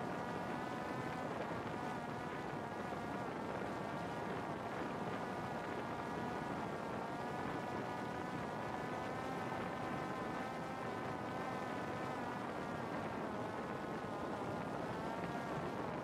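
Parrot Disco fixed-wing drone's electric motor and pusher propeller running steadily, a buzzing whine that wavers slightly in pitch over a constant rush of noise.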